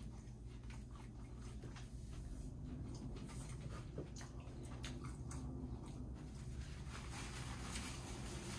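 A person chewing and biting food, with many short sharp mouth clicks over a steady low hum.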